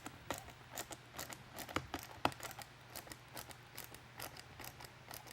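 Small side mount screws on a Sirennet SNDL3 LED deck light's housing being snugged down, with a run of light, irregular clicks and ticks from the tool and the parts. The two sharpest clicks come around the middle.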